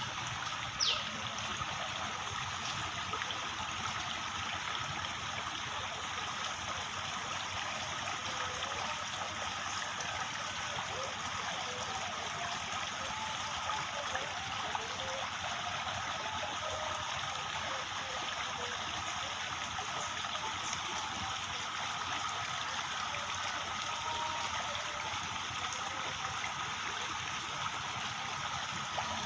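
Running water, a steady trickling flow with no break. About a second in, a short high note falls in pitch.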